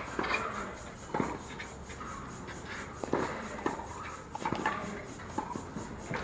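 Tennis rally on a clay court: racquets strike the ball about once a second, some strikes with a short grunt from a player.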